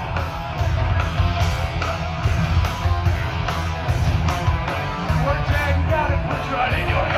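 Live thrash metal band playing through a festival PA: distorted electric guitars and a driving drum beat, with yelled vocals over the second half.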